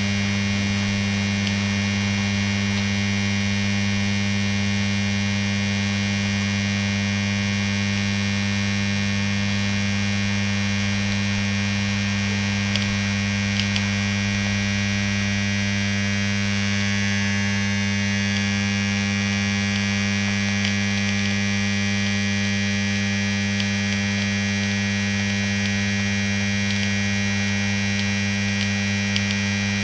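The electric motor of a cut-open Danfoss Maneurop MTZ100 refrigerant compressor, fed straight from the mains, humming with a loud, deep, unchanging tone. It is drawing close to 40 amps, and its overheating windings are smoking: the motor is burning out.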